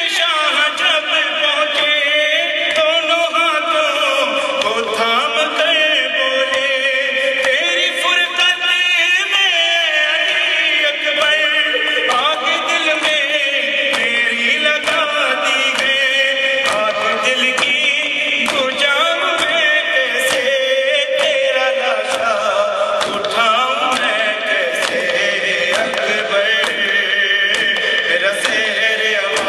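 A man chants an Urdu noha (mourning lament) into a microphone, with men around him chanting along. A steady beat of hand slaps runs under the chant, the chest-beating (matam) that keeps time with a noha.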